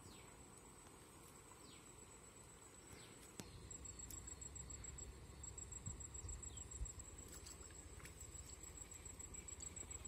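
Faint high-pitched insect trill, steady at first and pulsing from a few seconds in. A low rumble joins about three seconds in.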